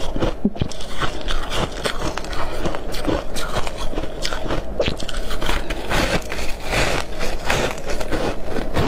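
Bites and chewing of a block of soft freezer frost (freezer foam): a dense, irregular run of crunches and crackles.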